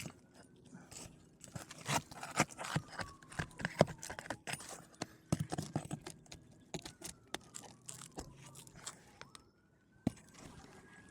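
Irregular metal clicks, knocks and scrapes of a shingle 'snake' nail-removal tool working under asphalt roof shingles to pull the nails. A distant siren wails faintly behind, rising again about nine seconds in.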